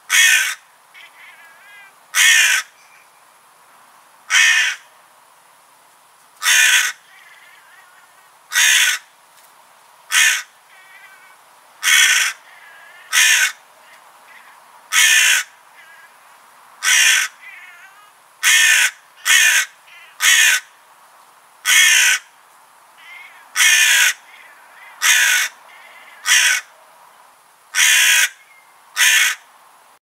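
A crow cawing over and over, one short loud caw about every one to two seconds, with fainter calls in between.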